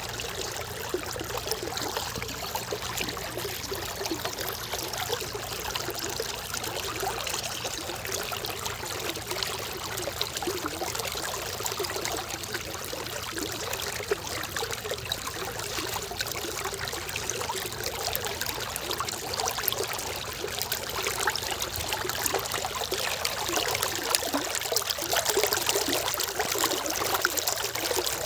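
Water flowing in a stream, a steady splashing flow that grows a little louder over the last few seconds.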